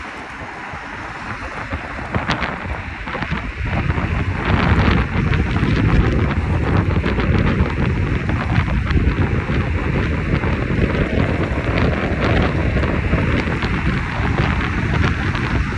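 Wind buffeting the microphone: a heavy low rumble with crackle that builds over the first few seconds, then holds steady.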